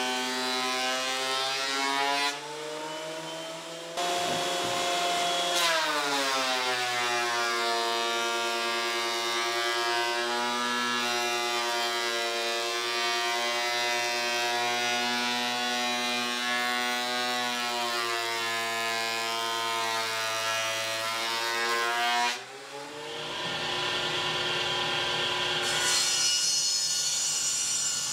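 Benchtop thickness planer running with a loud motor whine as boards are fed through. The pitch sags while the knives take a cut and rises again as the load comes off. Near the end there is a noisier cutting sound with a higher whine.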